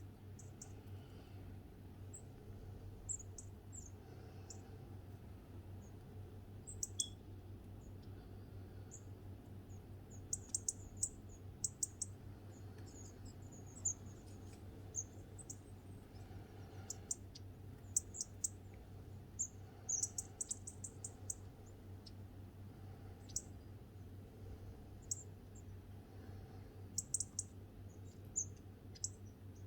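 Small garden birds giving short, very high-pitched chirps and twitters, scattered and irregular, some in quick runs of several notes, over a steady low hum.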